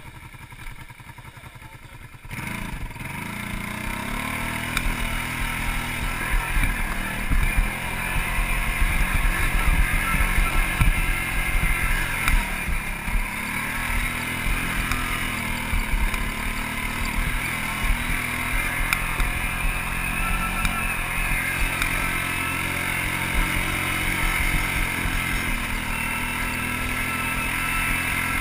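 ATV engine, quieter for about two seconds, then pulling away with a rising pitch and running under load up a gravel trail, its revs rising and falling several times along the way.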